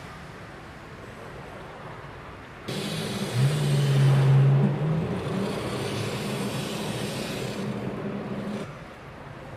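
Handheld jeweller's gas torch burning: a steady hiss with a low droning tone. It starts abruptly a few seconds in, is loudest for a second or two after it begins, and stops shortly before the end.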